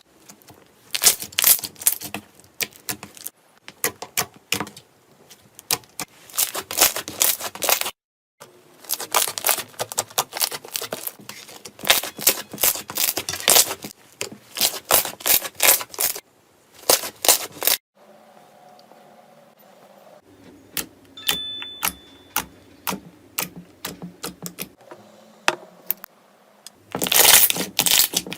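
Slime being squeezed and pressed by hand, giving dense runs of crackling, popping clicks. It comes in several separate takes, with a quieter, sparser stretch in the second half.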